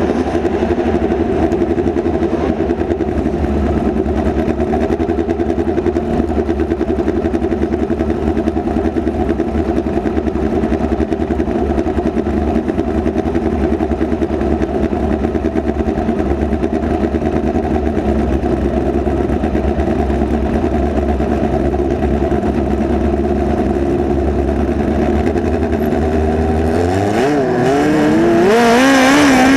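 Midget race car's engine running hard and steady at high revs, heard from the onboard camera, with a low rumble underneath. About 27 seconds in, the engine note swings up and down in pitch and grows louder.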